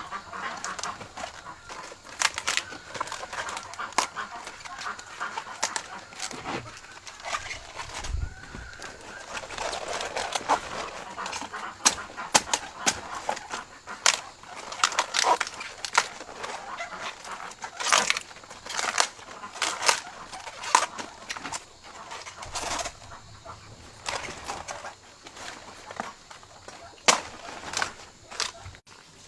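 Chickens clucking, with many sharp clicks and knocks scattered throughout.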